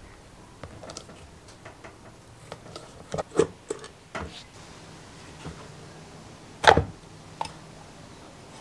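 A screwdriver backing a screw out of the base of a vintage Berda Snackwicher sandwich toaster: faint scattered ticks, then a quick cluster of louder clicks about three seconds in as the screw comes free. A single loud, sharp knock follows a few seconds later.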